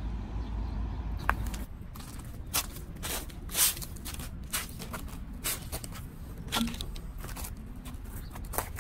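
Footsteps in slide sandals on a concrete sidewalk: an irregular series of slaps and scuffs. A low rumble stops under two seconds in.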